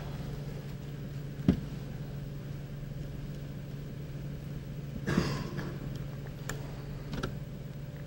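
Steady low hum in a quiet room, with a single sharp knock about one and a half seconds in, a brief rustling noise about five seconds in and a couple of faint clicks near the end.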